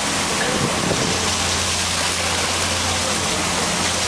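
Steady rush of water and wind around a moving boat, with the low, even drone of its engine underneath.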